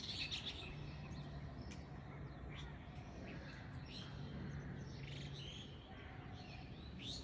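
Faint birds chirping in short calls, about one every second, over a low steady hum.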